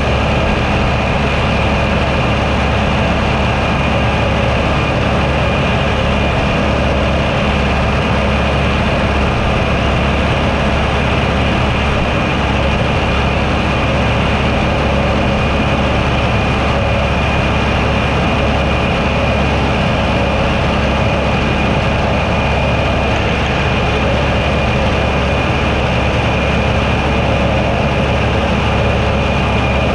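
Tractor engine running steadily while driving a roadside mower, with a steady high-pitched whine over the low engine sound.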